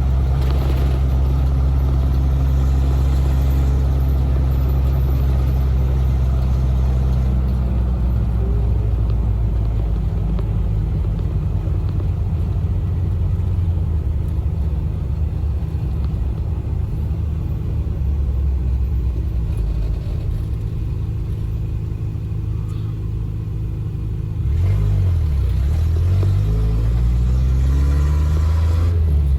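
Toyota 22RE 2.4-litre four-cylinder engine in a first-generation 4Runner under way on the road, running with a steady low rumble. Its note changes about seven seconds in, and near the end it gets louder and revs up, the pitch rising.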